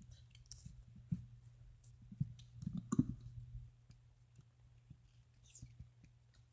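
A few faint, scattered clicks and taps of play-dough and modelling tools being handled on a table, over a low steady hum.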